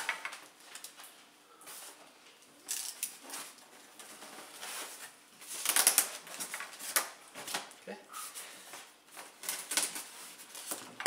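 Packaging being handled and pulled from a box: bouts of rustling and clicking with quieter gaps between.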